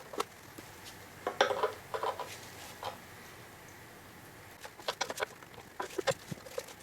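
Scattered small metallic clicks and clinks, some in quick clusters, from a tool prying around the sealed edges of a thin aluminium ECU case.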